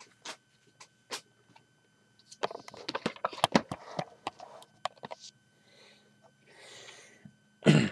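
Handling noise of small plastic LEGO pieces: scattered clicks and knocks, thickest in the middle, as minifigures on a LEGO plate are set out on the display surface. A louder short noise comes near the end.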